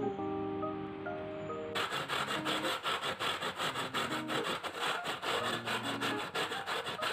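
A potato being grated by hand on a grater: quick, regular rasping strokes, about five a second, starting about two seconds in.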